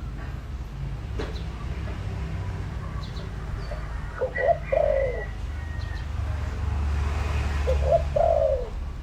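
Spotted dove cooing twice, about four seconds apart, each phrase a couple of short notes then a longer falling coo, over a steady low rumble.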